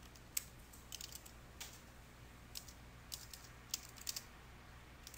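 Computer keyboard typing, faint: short keystroke clicks in small irregular runs with brief pauses between them.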